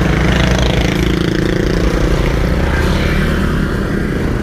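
Motor vehicle engine running steadily while on the move, a low hum with rushing road and wind noise over it.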